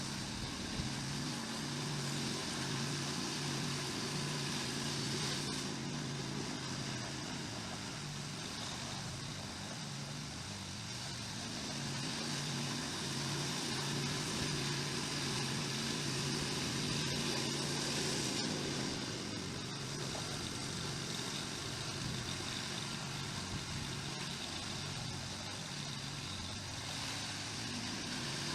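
Snowblower engine running steadily, with a constant hiss alongside its hum as it works.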